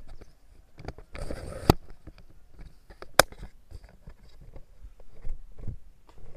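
Someone scrambling up a slope of loose rock and dirt: irregular scuffs, scrapes and small crunches of shoes and hands on stone and soil, with two sharp knocks about a second and a half apart.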